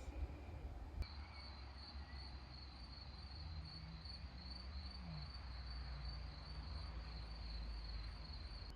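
Insect trilling: a steady, evenly pulsing high-pitched trill that starts abruptly about a second in and cuts off just before the end, over a low rumble.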